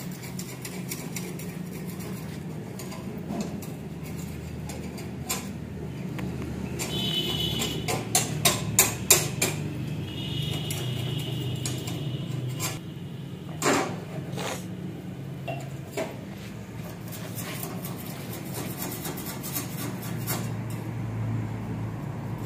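Scattered clinks and knocks of metal dishes and cooking utensils over a steady low hum, with a quick run of clinks about eight seconds in and one louder knock near fourteen seconds.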